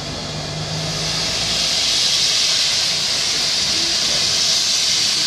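Steam locomotive letting off steam, a steady loud hiss that grows stronger about two seconds in.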